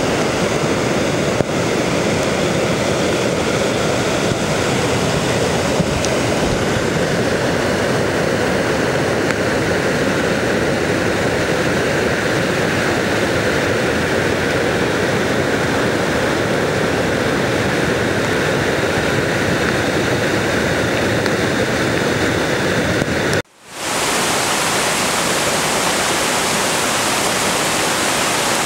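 Barron Falls in full flood: a torrent of floodwater pouring over rocks and down the falls, a loud, steady rush. About three-quarters of the way through the sound cuts out for a moment, then returns with more hiss.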